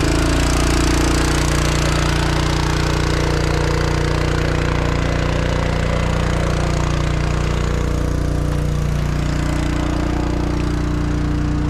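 Water delivery truck's engine running steadily at an even speed, its note wavering slightly about two-thirds of the way through.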